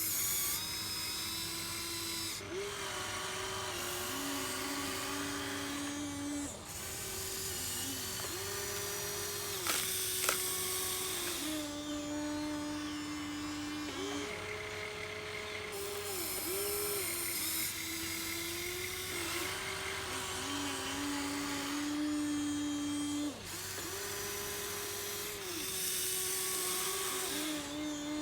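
Huina 1593 RC excavator's small electric motors and gearboxes whining as they work the arm, bucket and swing, the pitch stepping up and down every second or two as different functions start and stop. There are two sharp clicks about ten seconds in.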